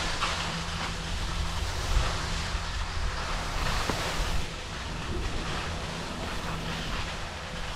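Skis sliding and hissing over packed snow, with wind buffeting the camera's microphones as a low rumble.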